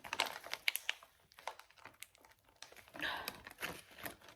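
A freeze-dried camping meal pouch crinkling as it is torn and pulled open by hand: a run of sharp crackles, with a longer rustle about three seconds in.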